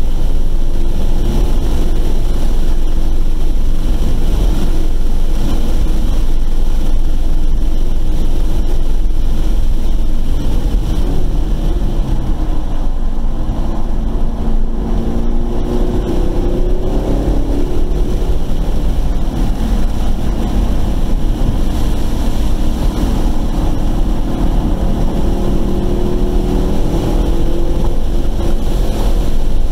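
Car engine being driven hard on a race track, heard from inside the car over strong wind and road noise. About halfway through, the engine note dips and climbs as the car brakes and downshifts for a corner, then it pulls steadily again in a lower gear.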